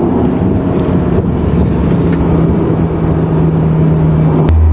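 A turbocharged Lancer-based car's engine droning steadily over road noise, heard from inside the cabin while cruising. Near the end there is a click, and the engine note drops to a lower, louder hum.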